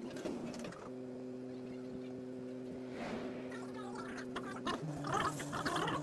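Power tool motor running at a steady speed with an even hum, changing pitch just before the end as rougher scraping noise joins.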